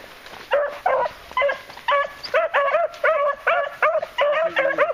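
Beagles giving tongue on a scent trail: a quick string of short, high, arching chop-mouth barks and yelps, two to four a second, in small bunches.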